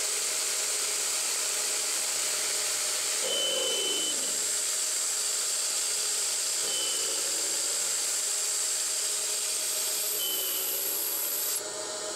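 CNC 9x20 benchtop metal lathe facing the end of a spacer with a carbide insert at about 1400 rpm: a steady hissing cutting noise over the running spindle. The sound drops suddenly near the end as the facing cut finishes.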